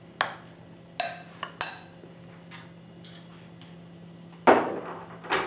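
Glass and crockery clinking as bottles and dishes are handled: a few sharp, ringing clinks in the first two seconds, then a louder clatter near the end.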